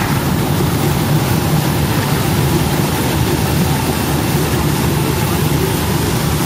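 CA-3000 bubble vegetable washer running with onions in it: a steady machine drone from its pumps, with the hiss of water churned by air bubbles.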